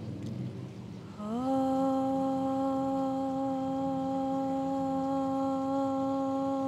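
A woman chanting a long 'om' on the exhale, starting about a second in with a slight rise in pitch and then held steady on one note.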